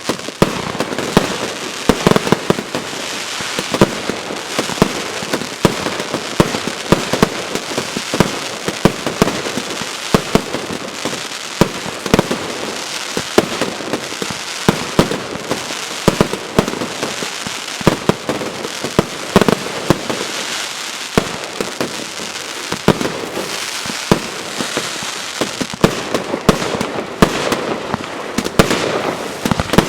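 Consumer firework battery (cake) firing: a steady stream of sharp bangs, several a second, over continuous crackling.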